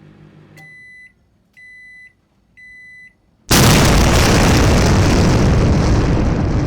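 Three high electronic beeps, one a second, each about half a second long, then about three and a half seconds in a sudden loud explosion boom that rumbles on and slowly fades.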